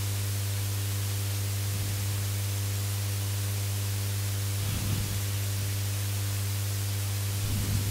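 Steady low electrical hum with a constant hiss from the recording chain. No other clear sound is heard.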